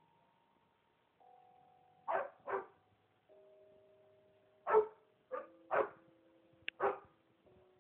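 Pit bull-type dog barking while spinning after its tail: six short barks, a pair about two seconds in and four more in the second half.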